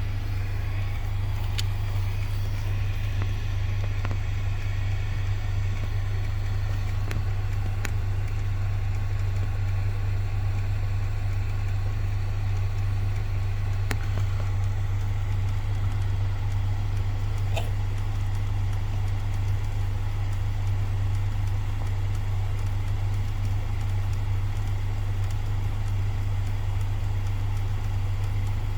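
Climate-control blend door actuator under the dash of a 10th-generation Honda Accord clicking now and then, a sharp tick every few seconds, over a steady low cabin hum. The actuator is failing and clatters during climate-control operation.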